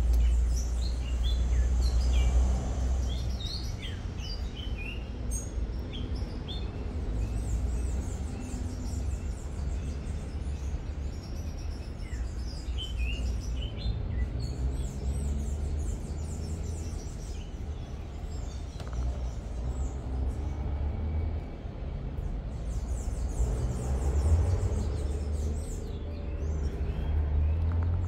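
Small birds chirping and calling on and off over a steady low rumble.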